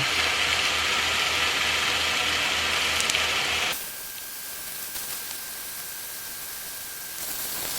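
Ground beef sizzling as it browns in a hot cast iron skillet. A little under four seconds in, the sizzle drops off sharply to a quieter hiss with a faint steady high tone, then picks back up near the end.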